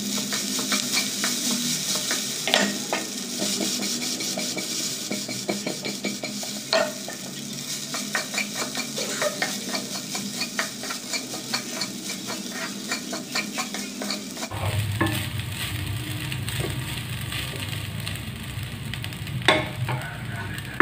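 Flat spatula stirring and tossing rice with fried sweet corn and capsicum in a hot kadai: a steady frying sizzle with many quick clicks and scrapes of the spatula against the pan, and a few sharper knocks. About two-thirds of the way in the hiss eases and a low steady hum comes in.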